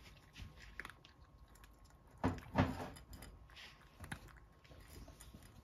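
Cat eating dry kibble from a saucer: quiet crunching and chewing with scattered sharp clicks, and two louder knocks about two seconds in.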